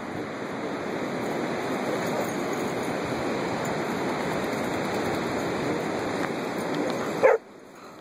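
Steady rushing noise of surf and wind on the beach, with a single short, sharp dog yelp about seven seconds in, after which the rushing noise drops away.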